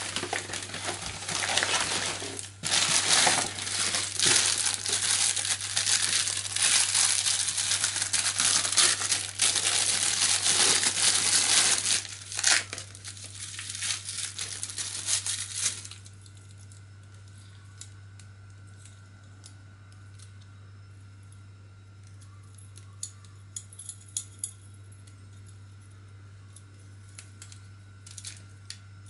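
Plastic packaging crinkling and rustling loudly as a polythene mailer and a clear plastic bag are handled and torn open; this stops about halfway through. After that there are a few light metallic clicks from a folding multitool being handled.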